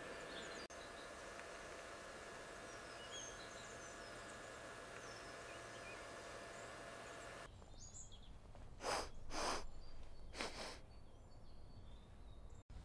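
Faint outdoor ambience: a steady hiss with a faint hum, and birds chirping now and then. About seven and a half seconds in it changes abruptly to a quieter background, where three short scuffing sounds come about a second and a half apart.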